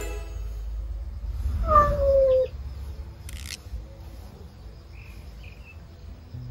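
A cat gives one falling yowl nearly two seconds in, followed about a second later by a short hissing noise.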